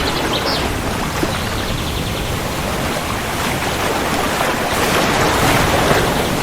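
Steady rain, a dense even hiss, with a low rumble of thunder beneath it that swells slightly about five seconds in.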